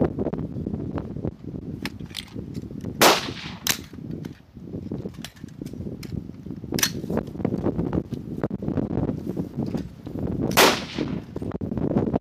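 Rifle shots from a firing line: sharp reports, the loudest about three seconds in and again near ten and a half seconds, with a few fainter shots between. A steady low rumble of wind on the microphone runs underneath.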